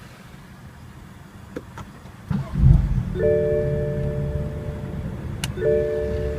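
BMW M4's 3.0-litre twin-turbo inline-six cranks and fires about two seconds in, flaring loudly before settling into a steady idle. A dashboard chime sounds twice over the idle, each tone held for about two seconds.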